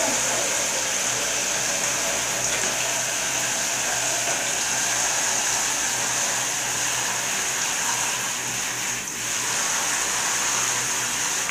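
Shower head spraying a steady stream of water onto a tiled shower floor and into a plastic bucket.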